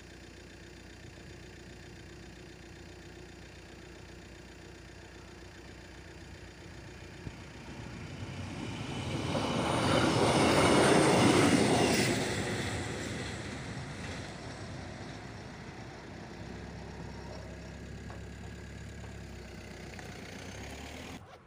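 Passenger train passing over a railway level crossing: it rises from about seven seconds in to its loudest around ten to twelve seconds, then fades away. Under it runs the steady ringing of the crossing's classic warning bell, which stops shortly before the end.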